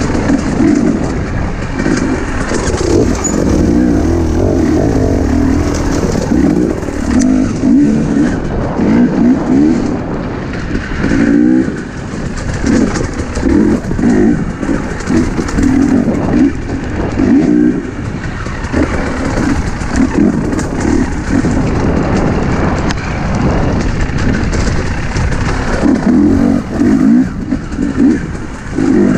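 Husqvarna enduro dirt bike engine being ridden over a rocky trail, its pitch rising and falling in short bursts of throttle, with the rattle of the bike over rocks underneath.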